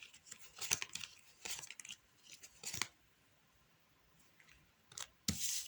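Playing cards being handled and laid out: several short papery snaps and slides, a quiet pause of about two seconds, then a snap and a longer slide near the end.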